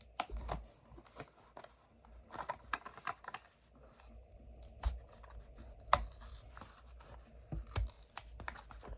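A Hot Wheels die-cast car's card-and-blister package being opened by hand: irregular tearing, scraping and snapping of cardboard and plastic.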